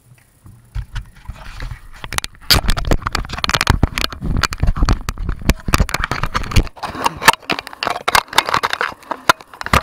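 Close handling noise of an action camera on its bicycle mount: rubbing and scraping against the camera with many sharp clicks and knocks, starting about a second in and growing loud and dense from about two and a half seconds.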